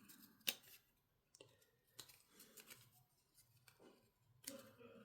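Faint, sparse clicks and rustles of trading cards and their packaging being handled, the sharpest click about half a second in and a short rustle near the end.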